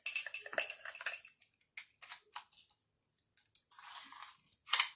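Craft materials handled on a work table while a tape measure is fetched and laid out: a run of small clinks and taps, scattered ticks, a short rustle and one sharp click near the end.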